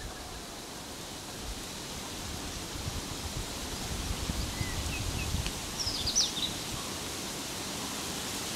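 Outdoor ambience: a steady noisy hiss with low rumbling, and a short run of high bird chirps about six seconds in.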